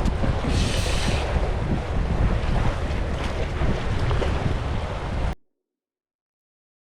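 Wind buffeting the microphone over the wash of sea water against the breakwater, with a brief brighter hiss about half a second in. The sound cuts out to dead silence about five seconds in.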